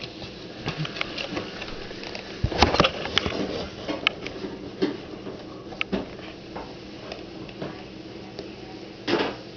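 Cardboard soda-can carton rustling and knocking as a dog pushes its head around inside it, with scattered clicks and scrapes. The busiest stretch is about two and a half to three seconds in, with another short flurry near the end.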